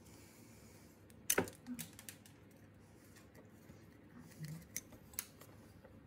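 Faint clicks and scrapes of a small screwdriver picking broken bits of a brittle plastic wiring connector out of its plug, with one sharper click about a second and a half in and two light clicks near the end.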